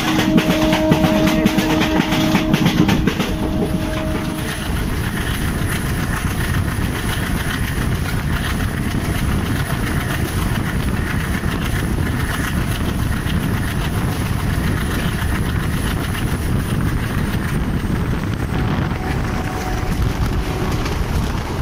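Passenger train hauled by an ALCO diesel locomotive, heard from beside the coach while running at speed: a loud, steady noise of wheels on rail and rushing air. For about the first four and a half seconds a steady pitched tone sounds over it, then the running noise goes on alone.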